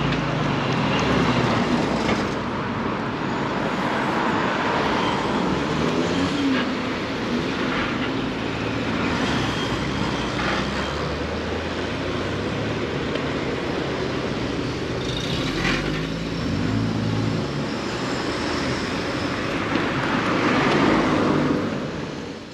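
City street traffic: cars and other vehicles passing with engines running, a continuous mix that fades out at the very end.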